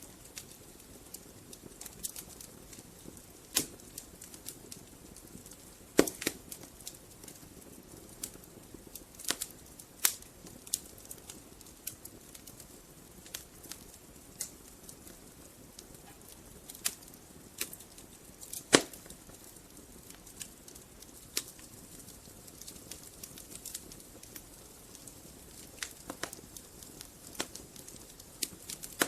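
Wood fire burning in a fireplace: a soft steady hiss with irregular crackles and sharp pops from the logs, the loudest pops about 6, 10 and 19 seconds in.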